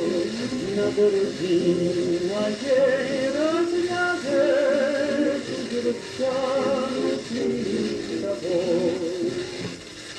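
A 1938 recording of a male tenor singing a Russian romance over instrumental accompaniment, with long held notes and a wide vibrato.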